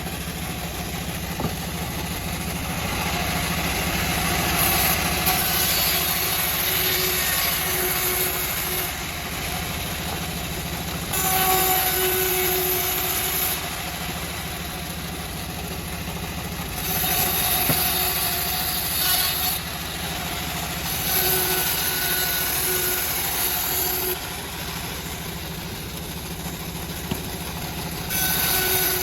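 Homemade bandsaw mill running steadily with a low machine drone. Several times its blade cuts into teak, raising a louder, higher sawing noise that lasts a few seconds each time.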